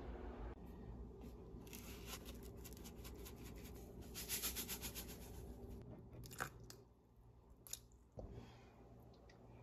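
Hand grinder twisted over a bowl, a fast run of dry crunching clicks as it grinds seasoning for a few seconds, then two or three separate sharp clicks.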